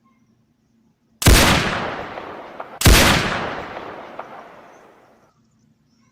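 Two rifle shots about a second and a half apart, each a sharp crack followed by a long echoing tail that dies away.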